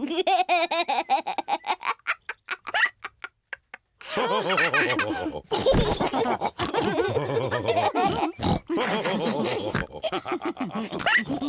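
Cartoon pig characters laughing together. The laughter breaks into short, quick pulses that fade out about three seconds in, then starts up again loudly with several voices at once.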